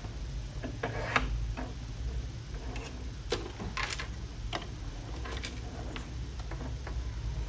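Irregular light clicks and taps of hands working the thread guides of a Singer M1605 sewing machine while threading the upper thread, over a faint low hum.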